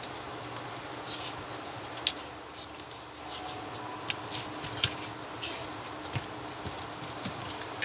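Hands handling and turning the metal chassis of an Epson TM-U220PD receipt printer on cardboard: light rubbing and scattered clicks and knocks of metal parts, with two sharper clicks about two and five seconds in.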